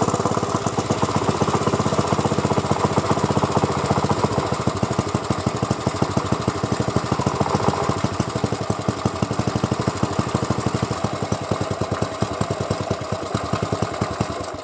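A Honda E800 portable generator's small single-cylinder OHC four-stroke engine running with a steady firing beat. About eight seconds in, the beat spreads out and turns uneven. The sound cuts off suddenly at the very end.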